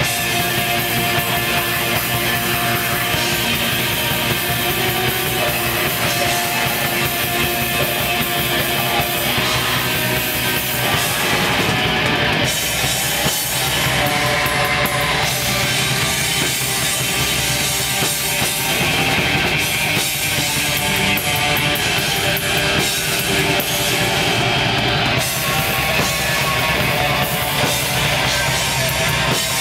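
Black metal band playing live: loud, distorted electric guitars over a drum kit, a dense wall of sound that runs on without a break.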